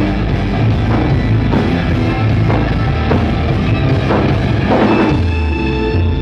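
Live rock band playing loud, with drum kit and distorted electric guitars and no singing. The drum hits come at a steady beat until about five seconds in, when the drumming stops and the guitars ring on in a held chord.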